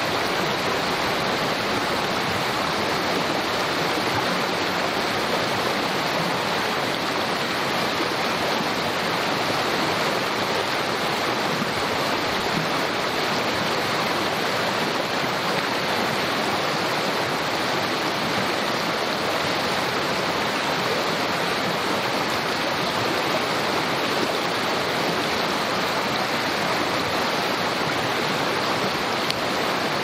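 A small creek rushing and babbling steadily over its bed, an even flowing-water sound with no breaks.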